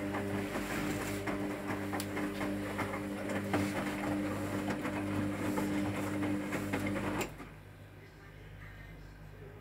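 Hotpoint WMA 30 washing machine tumbling its drum on the final rinse: a steady motor hum with a busy patter of knocks from the wet load, which stops suddenly about seven seconds in as the drum comes to rest.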